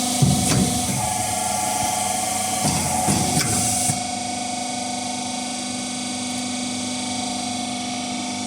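Hydraulic motor of a hydro-pneumatic riveting machine running with a steady hum. Over the first four seconds a hiss of compressed air, with a few clunks about a quarter second in and again near three seconds in, then the hiss cuts off and the hum goes on.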